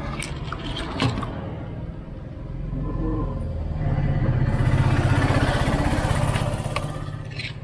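A vehicle engine running with a low, steady hum that swells louder through the middle and then fades. Two sharp clicks come within the first second or so.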